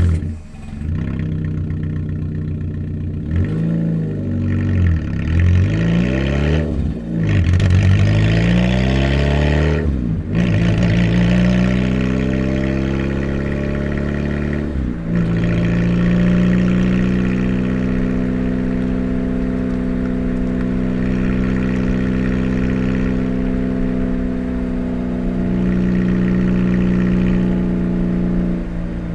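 Loud car engine with a sport exhaust revving up and down several times, then pulling with rising revs, with a break in the sound about ten and fifteen seconds in. After the second break it holds a steady high drone to the end.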